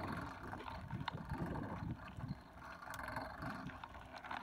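Bicycle rolling over a loose gravel lane: tyres crunching and popping on the stones, with rumbling wind on the microphone.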